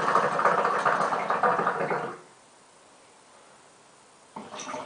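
Hookah water bubbling loudly in the base as smoke is drawn through the hose; the draw stops abruptly about two seconds in. A softer bubbling draw starts near the end.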